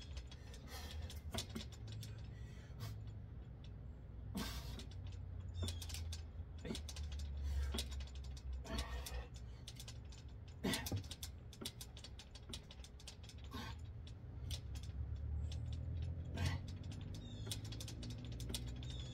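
Steel dip station creaking and clunking under a man's weight as he does dips, with irregular squeaks and knocks every second or two. The stand is not level on the ground and shifts as he moves.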